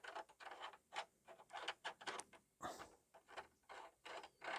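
Interior door handle and its plate being fitted onto a door: an irregular run of small clicks and scrapes, several a second.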